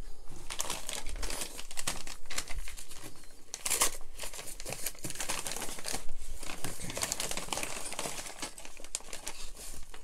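Padded paper mailing envelope being torn open and handled, its paper crinkling and tearing in irregular crackles, with a louder crackle a little under four seconds in.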